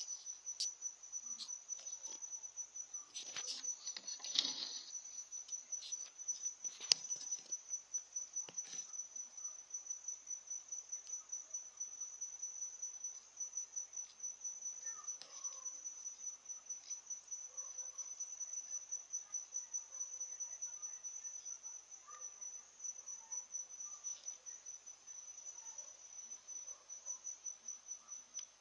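A cricket chirping: a steady, high-pitched pulsing trill. A few clicks and rustles come in the first several seconds.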